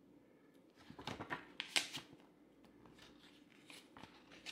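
Paper booklet pages rustling as a catalog and an instruction manual are handled and leafed through by hand, in two short spells about a second in and near the end.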